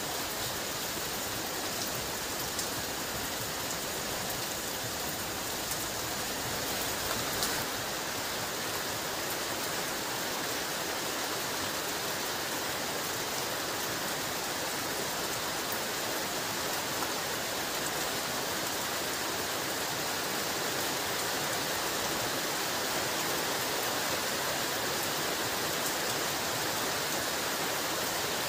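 Heavy rain falling steadily: a dense, even hiss of rain, with now and then a sharper tick of a single drop hitting close by.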